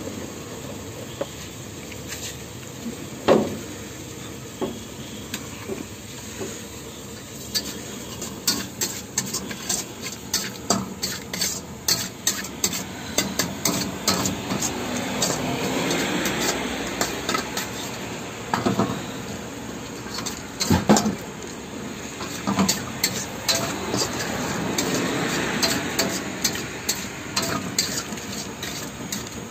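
Metal spatula clanking and scraping against a wok while gobi manchurian is stir-fried, with fast runs of strokes through the middle and sizzling that swells twice. Two louder knocks, one about three seconds in and one about two-thirds of the way through.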